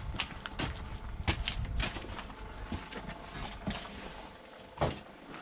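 Footsteps and irregular knocks and clatter as a freshly painted metal part is carried by hand, with one louder knock near the end.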